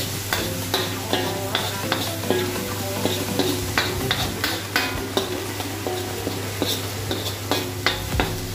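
Steel ladle scraping and knocking against a wok as chicken and peppers are stir-fried, with irregular clanks a few times a second over the steady sizzle of the frying.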